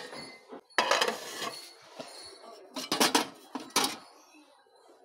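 Clear plastic casserole container and its metal lid being handled and knocked together: a rattling clatter about a second in, then a few sharp clinks around three seconds in as the lid is fitted on.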